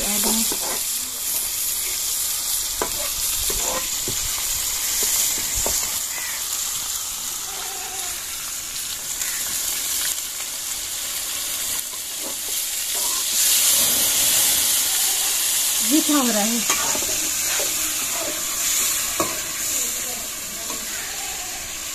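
Curry masala of tomatoes, onions and green chillies frying and sizzling in an aluminium karahi over a wood fire: a steady high hiss, with a few sharp clicks in the first few seconds.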